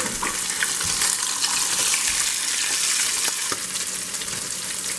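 Breaded bullhead fillets shallow-frying in hot oil in a pan, sizzling steadily with scattered small pops.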